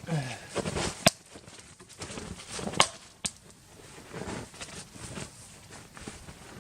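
Crunching, scuffling movement in snow, with three sharp clicks or snaps, about a second in and twice near the three-second mark.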